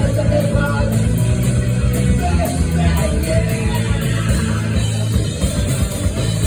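Live rock band playing loud and steady: distorted electric guitars, bass and drums, with singing.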